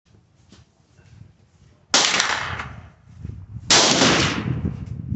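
Two gunshots about two seconds apart, each a sharp crack with a long echo tail under the range's roof. Faint clicks of gun handling come before them.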